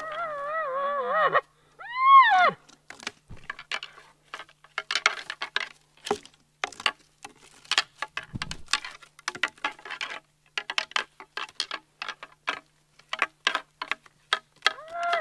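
Elk call blown through a grunt tube: a wavering, pitched call at the start, then one short note that rises and falls about two seconds in. After that comes a long irregular run of dry cracks and rustles of sticks and brush snapping on the forest floor.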